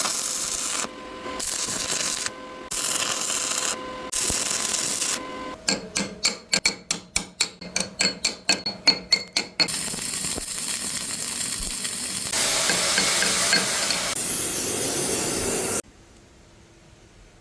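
Welding on a heavy truck's driveline joint: a crackling hiss that starts and stops in several short runs, then a run of sharp metal taps about four a second, then a longer stretch of welding hiss that cuts off suddenly near the end.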